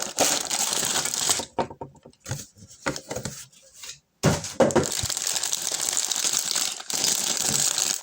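Plastic LEGO parts bags crinkling as they are handled, with a quieter stretch of small plastic pieces clicking and rattling in the middle. The sound cuts out abruptly for a moment about four seconds in, then the crinkling resumes.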